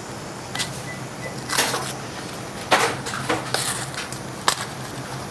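Long grain rice poured from a bag into a large sizzling paella pan of seafood: a steady sizzle with several short bursts as the rice goes in.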